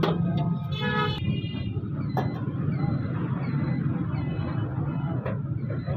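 Steady low rumble of street traffic, with a brief vehicle horn toot about a second in.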